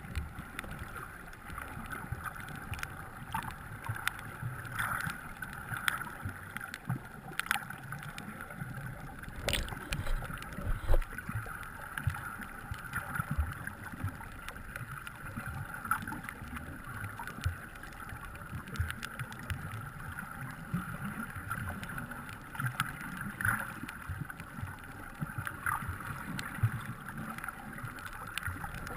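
Muffled underwater ambience picked up by a submerged camera: a steady watery hiss with scattered clicks and low rumbling bumps.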